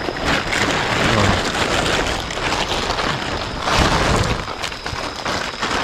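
Plastic tarp crinkling and rustling loudly as it is handled and spread, with louder crackling surges about a second in and near four seconds.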